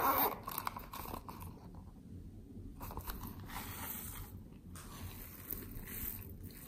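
Crackly, crunchy rustling of a pink plastic toy container being handled and its contents pressed into a bowl of foam clay and slime. It comes in three stretches, the first and loudest at the start.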